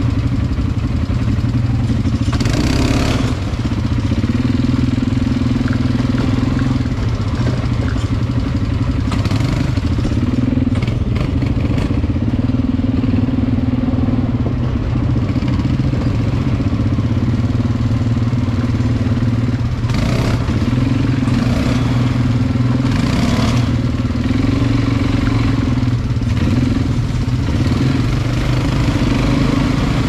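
ATV engine running steadily while riding, its pitch shifting a little with the throttle. A few short rushes of noise cut across it.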